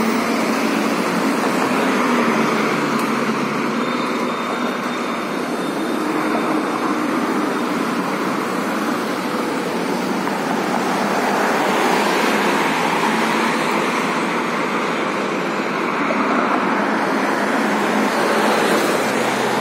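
Road traffic on a city street: a steady wash of car noise, swelling as vehicles pass, twice in the second half.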